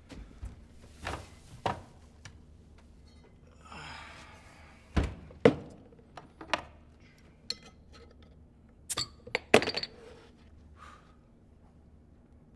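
A series of sharp knocks and thuds mixed with clinks, with a short rustle about four seconds in; the loudest knocks come about five and a half seconds and nine and a half seconds in.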